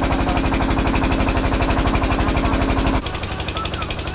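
A small engine running close by with rapid, even firing beats. About three seconds in, the sound cuts to a quieter take in which the engine beats go on.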